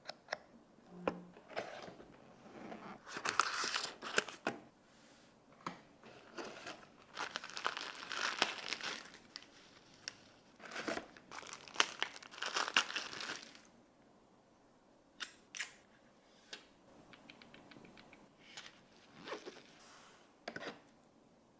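Packaging of a smartphone box being torn open and handled: irregular tearing and crinkling with sharp clicks and taps, busiest in the first two-thirds. It then quietens to scattered clicks and a quick run of small ticks.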